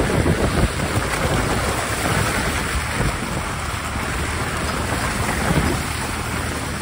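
Steady rushing spray of a ute's tyres churning through mud and standing water, mixed with wind rush on the microphone.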